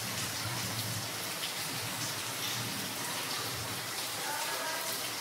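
Steady rain falling on a tiled roof, water dripping from the tile edges.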